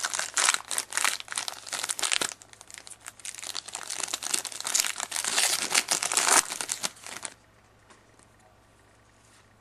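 Foil-and-plastic wrapper of a hockey card pack crinkling and crackling as it is torn open by hand. The crackle stops about seven seconds in.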